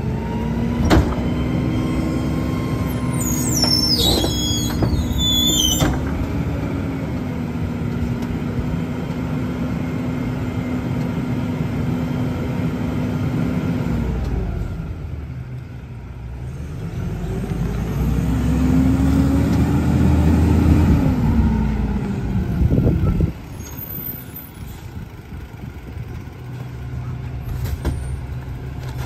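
McNeilus rear-loader garbage truck running its packer cycle: the engine is held at raised revs to drive the hydraulics while the packer blade compacts the load in the hopper, with high metal squealing about three to six seconds in. The revs dip midway, rise again, then drop back to idle suddenly about twenty-three seconds in.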